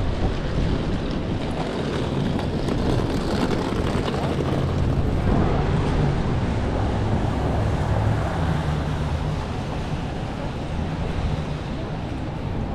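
Downtown street traffic: a steady wash of vehicle noise with a low engine drone that is strongest through the middle and eases off near the end.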